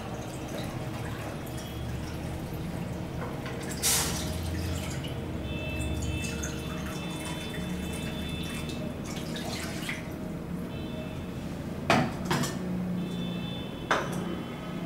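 Water pouring from a plastic jug into a measuring cup and an aluminium pot, with a few short knocks along the way.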